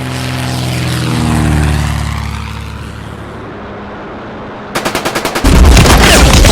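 RC Corsair model plane's propeller drone falling in pitch as it passes, then a loud rapid machine-gun burst starting near the end.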